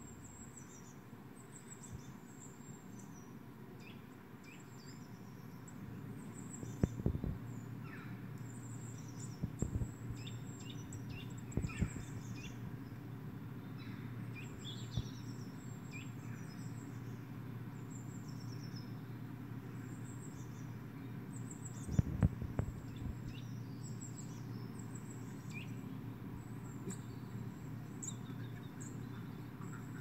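Small songbirds chirping and trilling, high and quick, from a bird video played through computer speakers, over a steady low hum. A few low knocks come through, the loudest about a quarter of the way in and about three quarters through.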